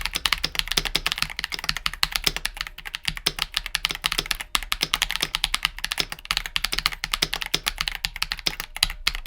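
Fast, continuous typing on a mechanical keyboard fitted with lubed Glorious Panda tactile switches in a KBD67 Lite R3 board: a dense run of key clacks, many strokes a second, with a couple of brief pauses.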